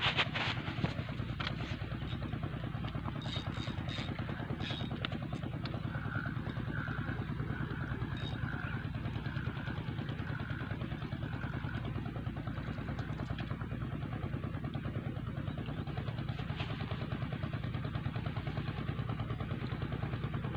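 An engine running steadily in the background, with a low, even pulsing hum. Around the middle comes a run of about seven short high notes, roughly one a second.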